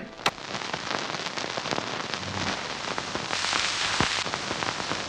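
Steady rain: a dense even hiss with many small sharp drop clicks, briefly heavier about three and a half seconds in.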